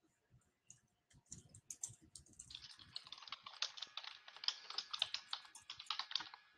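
Typing on a computer keyboard, faint: a few scattered key clicks, then a quick, steady run of keystrokes from about two and a half seconds in until just before the end.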